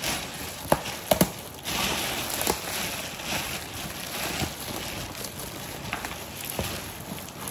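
Gift packaging being handled and unwrapped: paper and plastic rustling and crinkling, with a few sharp clicks and knocks in the first few seconds.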